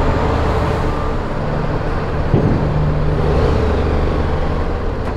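Motorcycle engine running at low speed as the bike rides off a ferry's car deck and down its loading ramp: a steady low hum, with a single sharp knock about two and a half seconds in.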